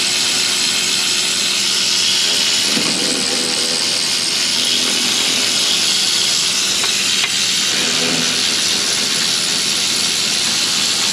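Electric ratchet running out a truck's 15 mm hub bearing bolts: a steady, loud hiss.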